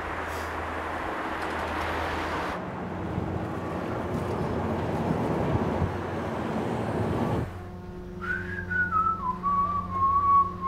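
A steady rush of road and wind noise inside a moving car, cutting off abruptly about seven seconds in. Then a slow whistled tune glides down and wavers over a low steady hum.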